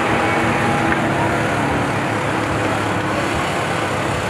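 A steady engine drone with several constant hum tones under it, level throughout.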